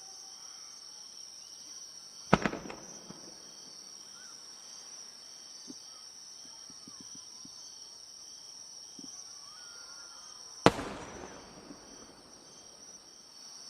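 Two large aerial firework shells bursting, the deep bangs about eight seconds apart, each followed by a rolling echo; these are 1-shaku (shakudama) shells. Insects trill steadily underneath with a regular pulsing chirp.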